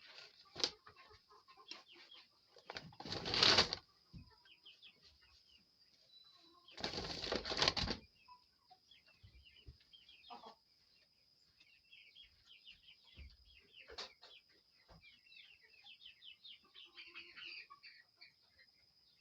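Chickens chirping and clucking, with two loud bursts of wing flapping, about three and seven seconds in.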